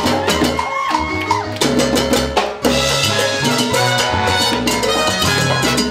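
Live salsa band playing: congas and timbales keep a steady percussive beat over a bass line and keyboard.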